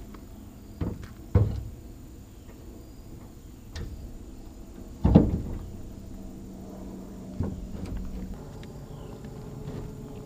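A series of separate knocks and clunks from hands-on work, about six in all, the loudest about five seconds in, over a low steady hum.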